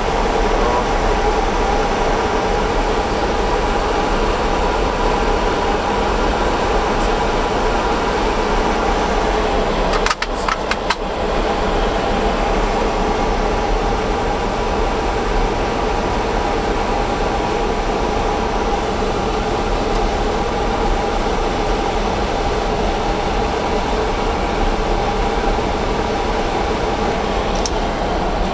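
Steady cockpit noise of an Airbus A300-600 in flight: a constant rush of air with a steady hum from the engines and air conditioning. A short dropout with a few clicks about ten seconds in.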